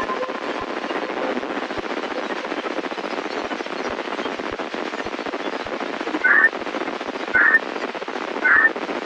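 Hiss and crackling static from a VHF radio receiver on 68.880 MHz, carrying weak long-distance reception of a municipal disaster-prevention radio channel. About six seconds in, three short, louder bursts come about a second apart.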